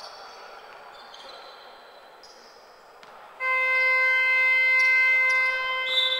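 Basketball arena horn sounding one steady, loud buzz for about two and a half seconds, starting a little past halfway. Before it, sneakers squeak briefly on the hardwood court.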